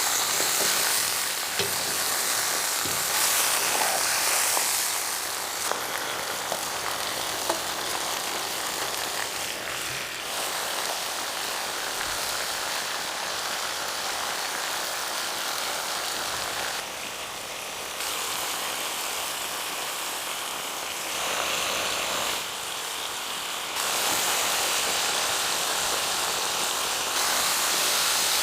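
Food sizzling in a cauldron over a campfire: a steady hiss with scattered crackles that changes abruptly several times.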